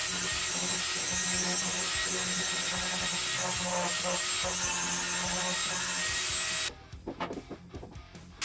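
Angle grinder with a cutoff wheel cutting through a steel threaded rod, a steady loud grinding whine. It stops suddenly about two-thirds of the way through, leaving a few light knocks.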